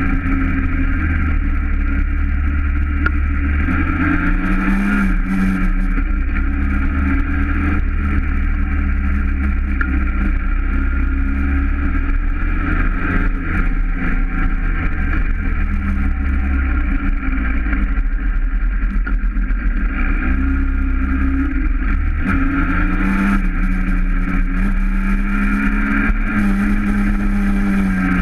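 Onboard engine of a small motor vehicle running steadily under way, its pitch shifting briefly about four seconds in and again near the end, over heavy wind and road noise.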